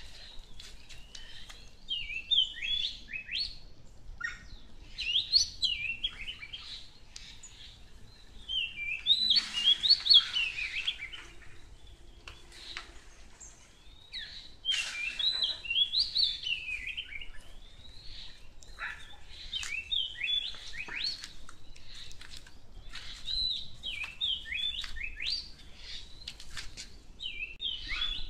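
Songbirds chirping and singing in short phrases of quick, high, sweeping notes, repeated with brief pauses.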